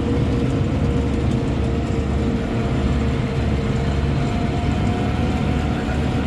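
Tractor engine running steadily, a dense low drone with a steady whine over it.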